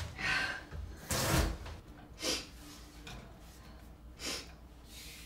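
A few short scraping, brushing noises as chopped onion is handled on a wooden cutting board and scraped off it into a frying pan; the loudest comes about a second in.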